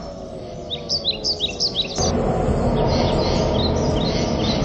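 Small birds chirping in quick runs of short, high, down-slurred calls over outdoor background noise, which gets abruptly louder and fuller about two seconds in.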